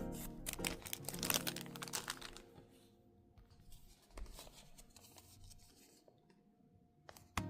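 Packaging being torn open and crinkled by hand: a dense run of crackling tears in the first couple of seconds, then fainter rustling and a few clicks of handling.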